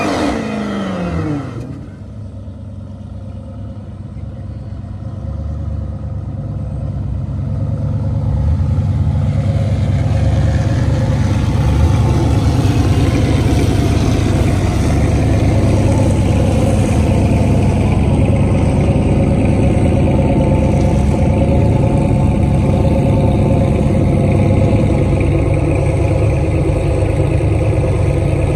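Drag cars' engines: an engine revving with a sweeping pitch that stops about a second and a half in. Then a deep, steady engine rumble builds over several seconds and holds loud to the end.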